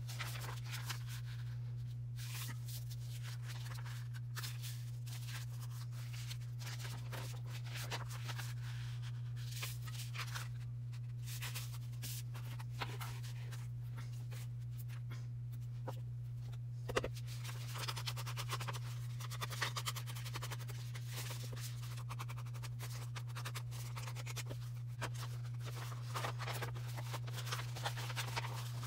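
Sheets of paper being handled and their edges rubbed with a Distress Ink pad: soft rustles, small taps and scraping strokes, thickest in two spells of rubbing in the second half, with a sharper tap about halfway. A steady low hum sits under it all.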